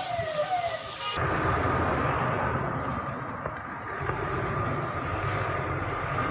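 Vehicle siren sounding in quick falling sweeps, about two a second, cut off about a second in. A steady outdoor rumble and hiss of vehicles follows.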